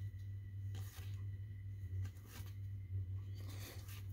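Baseball cards being flipped through by hand, one card slid from the front of the stack to the back at a time: a few faint, soft slides and flicks of card stock over a steady low hum.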